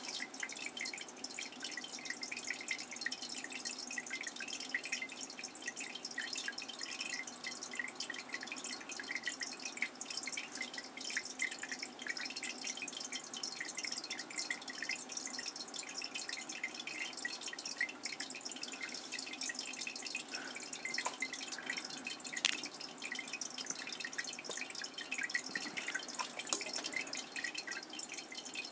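Steady trickling, dripping water, made of many small overlapping drips and pops, with a couple of slightly louder drips in the second half.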